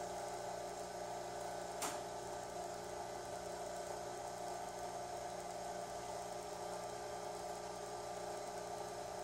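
Vacuum pump running steadily with a continuous mechanical hum made of several fixed tones. A single sharp click sounds about two seconds in.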